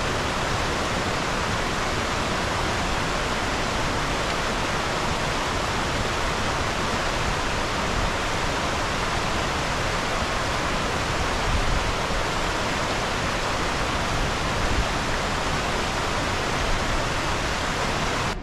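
Rocky mountain stream rushing over small cascades: a steady, loud rush of water.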